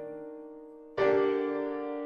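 Piano accompaniment: a chord rings and fades, then a louder chord is struck about a second in and decays.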